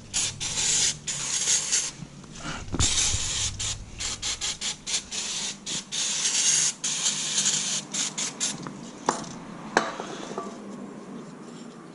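Aerosol brake cleaner sprayed onto brake parts in a string of short and longer hissing bursts, stopping about nine seconds in, followed by two sharp clicks.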